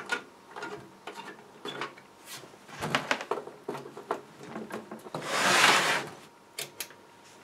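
Handling of a Technics SU-V50 stereo amplifier: small clicks and rubbing as its flimsy spring-clip speaker terminals are pressed and the back panel is handled, then the amplifier's case scraping across a wooden bench for about a second as it is turned round, followed by two light clicks.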